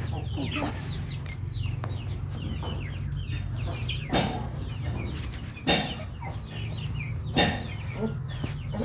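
Flock of chickens clucking and cheeping steadily as they feed, with three sharp knocks in the second half over a low steady hum.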